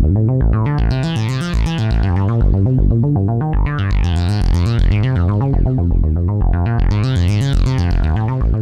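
Modular synthesizer playing a fast repeating sequence of short notes over a steady low bass, its brightness sweeping up and down about every three seconds.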